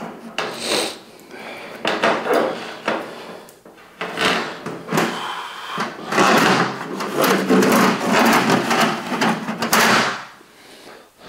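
Steel drain-snake cable being pulled from the drain and worked back into a drum machine: irregular scraping, rattling and knocking of the coiled cable, busiest and loudest in the second half.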